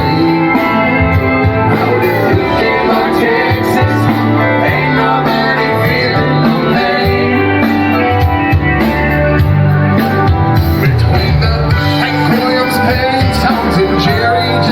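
Music with guitar and singing, playing at a steady loud level throughout.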